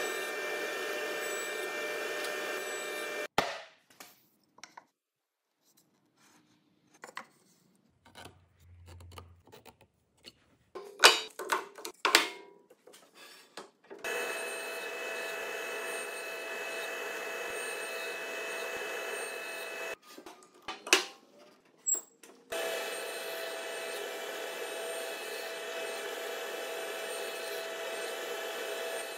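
Sliding table saw running with a steady whine while a square wooden post is pushed through it for shallow crosscuts, heard in three stretches that start and stop abruptly. Between them, sharp knocks and clatter of wood being handled on the saw table.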